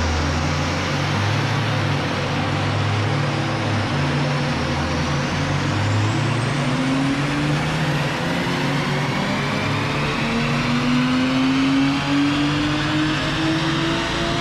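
Porsche Boxster S flat-six running on a rolling-road dyno during a power run: revs held low and fairly steady at first, then climbing smoothly and steadily from about halfway through.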